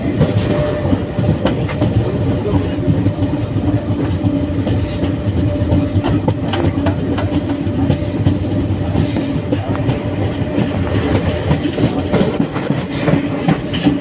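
Train running along the track, heard from on board: a steady rumble of wheels on rails with frequent irregular clicks and a steady low drone underneath.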